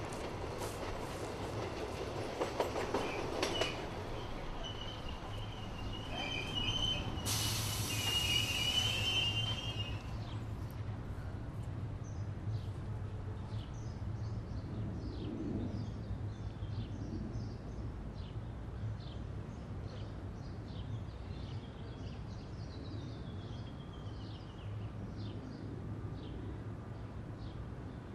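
Train running on rails: clicking knocks in the first few seconds, then a wheel squeal and a loud burst of hiss around seven to ten seconds in. After that it settles into a low steady rumble with short high chirps over it.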